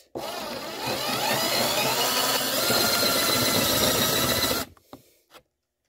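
Cordless drill boring a hole through a chair seat: the motor speeds up with a rising whine over the first second, runs steadily under load, and stops suddenly after about four and a half seconds.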